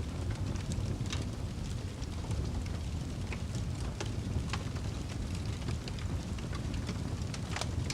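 Fire burning: a steady low rumble with frequent irregular crackles and pops.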